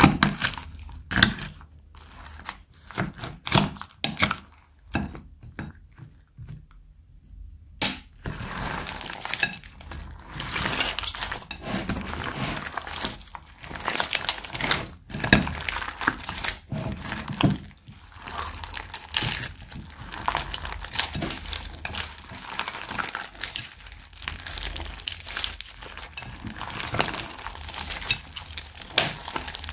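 Hands squishing and kneading a bowl of slime mixed with soft clay, foam and small plastic beads: continuous sticky crackling and popping. For the first eight seconds or so it is a series of separate sharp crinkles and clicks instead.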